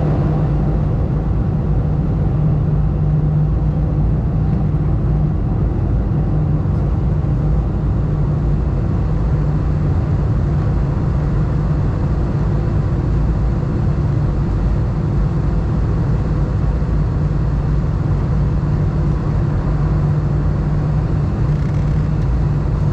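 Steady cabin noise of an Airbus A320 in descent: a constant low engine hum over rushing airflow, heard from a window seat over the wing.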